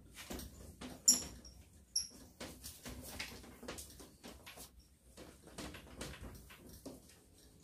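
Dry cloth rubbing over a wardrobe's glass mirror in quick, irregular wiping strokes, buffing the dried cleaner off the glass. Two short high squeaks stand out, about one and two seconds in.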